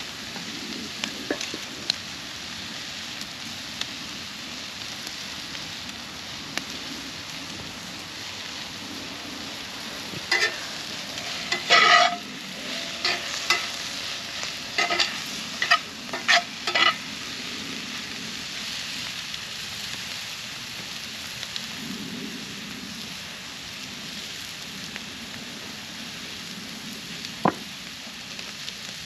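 Food sizzling and frying on cast iron over a wood campfire, a steady hiss with a few small crackles. About ten seconds in comes a run of ringing clanks and scrapes from a cooking utensil working the food on the cast iron, and there is one sharp click near the end.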